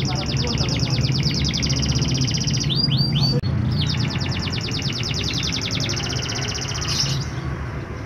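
Domestic canary singing: long, very rapid trilled rolls, broken about three seconds in by a few quick whistled sweeps, then another long trill. A steady low hum runs underneath.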